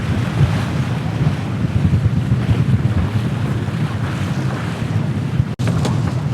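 Wind buffeting the microphone over the rush of water along the hull of a VO65 racing yacht under sail, a steady low rumble. The sound drops out for an instant near the end.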